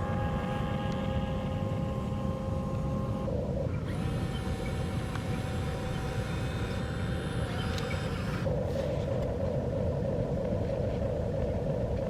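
Diesel engine of a backhoe or excavator running, a low rumble with a steady whine over it. The sound changes abruptly about three and a half seconds in and again past the middle.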